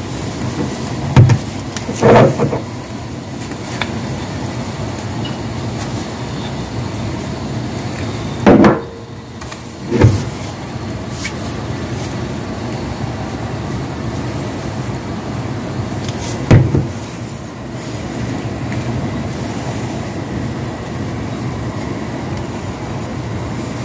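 Steady low rumbling kitchen noise, broken by about five loud knocks and clunks as a wooden spoon and seasoning jars are handled at the pan.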